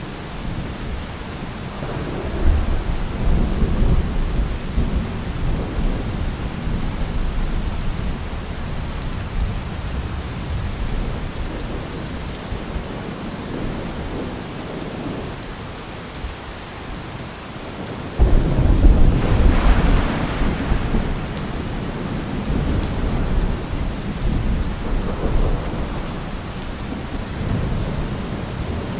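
Steady heavy rain with rolling thunder. A low rumble builds about two seconds in and rolls for several seconds; about two-thirds of the way through a sudden loud thunderclap breaks and rumbles away.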